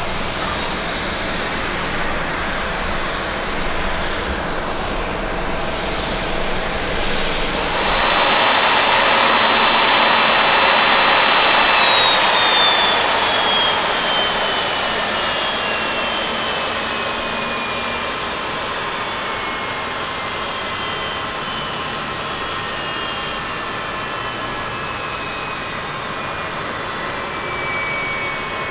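Jet airliner engines on the runway: a steady roar that grows louder about eight seconds in, with a high whine that holds and then slowly falls in pitch over the rest of the stretch.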